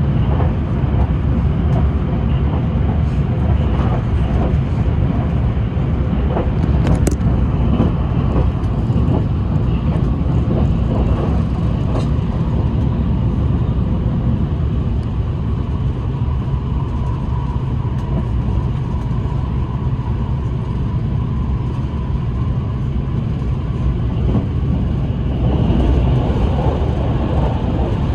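Steady running rumble of a train travelling at speed, with scattered light clicks and a faint high whine for several seconds in the middle.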